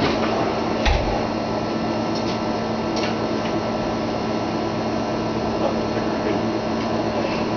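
Steady machine hum and fan-like noise with a constant low tone, broken by a couple of faint knocks about one and three seconds in.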